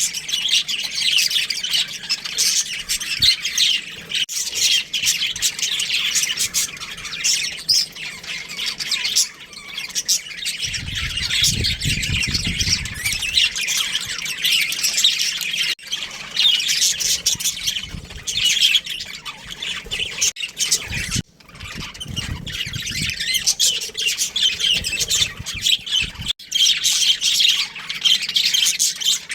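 Budgerigars chirping and squawking continuously. The calls overlap densely, with a short low rumble about eleven seconds in.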